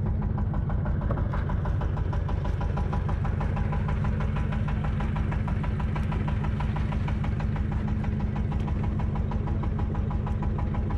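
Fishing boat's engine running steadily with a rapid, even knocking beat.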